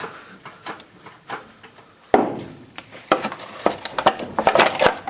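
Irregular knocks, clicks and scrapes as the timing belt cover is worked free of the engine, with a sharper knock about two seconds in and a quick run of clicks near the end.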